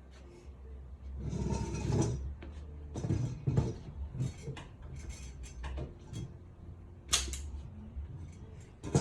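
Irregular clicks, knocks and rustling of metal engine parts and hand tools being handled during cam and oil pump assembly, with a steady low hum underneath.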